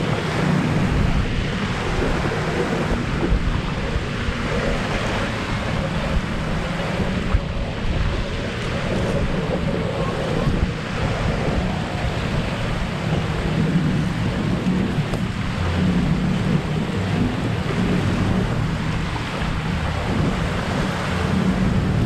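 Wind buffeting the microphone, steady and loud, over waves lapping against the lakeshore.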